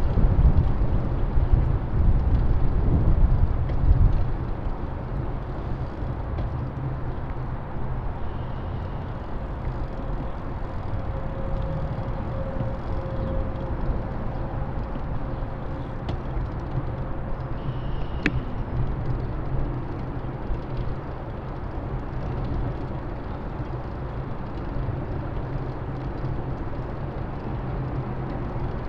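Steady city street traffic noise recorded from a bicycle, with a heavier low rumble for the first four seconds and a single sharp click about eighteen seconds in.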